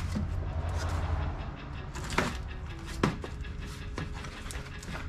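Blade slitting the packing tape on a small cardboard box, a scratchy rasp, then the cardboard flaps being pulled open with a few sharp taps and knocks, the loudest about two and three seconds in.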